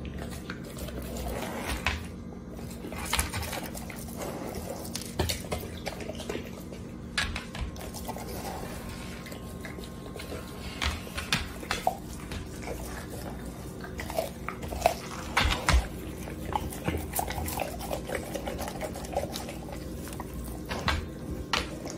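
Dog chewing and tearing at a raw whole chicken: irregular wet smacking and sharp crunching clicks.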